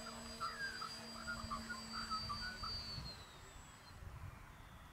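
Electric RC model plane's motor whining at a steady pitch, cutting out about three seconds in.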